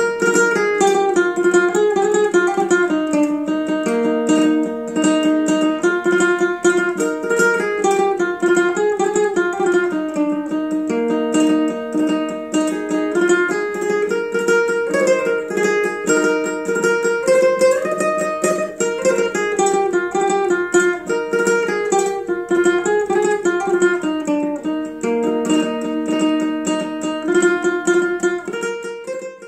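Instrumental music on a plucked string instrument: a quick melody of picked notes over lower held notes, fading out near the end.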